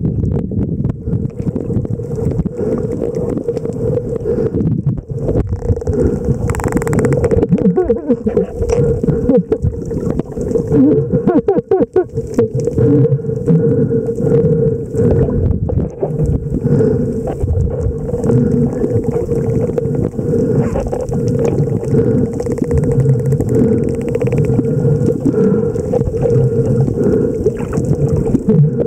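Underwater noise picked up by a snorkeler's camera: a dense low rumble of moving water with a steady hum.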